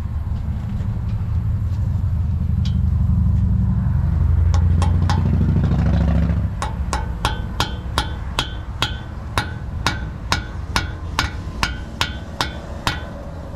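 A low rumble for the first six seconds or so. Then a hammer taps steadily on a stripped-Allen-bolt extractor socket, about three strikes a second with a metallic ring, driving it into a stripped Allen set screw on a brake caliper.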